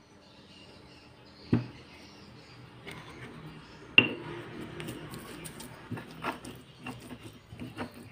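Pestle in a stone mortar crushing shallots, garlic and coriander seeds: a knock about a second and a half in, a louder ringing strike at about four seconds, then a run of irregular pounding and grinding strokes.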